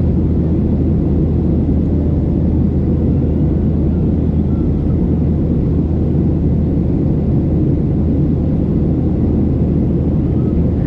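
Cabin noise inside a Boeing 737-700 in flight: the steady drone of its engines and the airflow past the fuselage, a low hum under a wide, even rumble.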